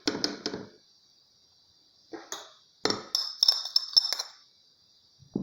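A spoon clinking and tapping against the blender jar as ingredients go in: a few light clicks at the start, then a quick run of ringing taps about three to four seconds in.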